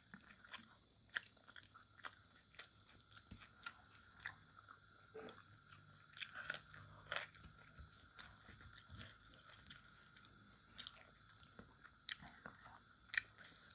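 A person chewing fried pork close to the microphone: soft, irregular wet clicks and crunches of mouth and teeth, with occasional louder bites.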